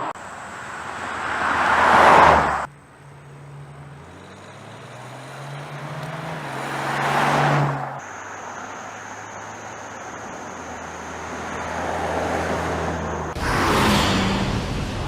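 A BMW X5 M50d, with its quad-turbocharged 3.0-litre inline-six diesel, driving past several times. Each pass swells as it nears and ends in an abrupt cut. In the second pass the engine note rises in pitch as it accelerates.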